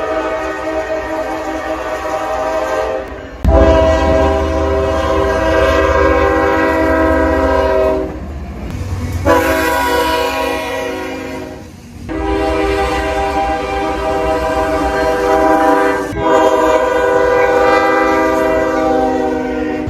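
Train horns sounding a series of long blasts, each a steady multi-note chord, changing abruptly every few seconds from one horn to the next. A low rumble of the train runs beneath most of them.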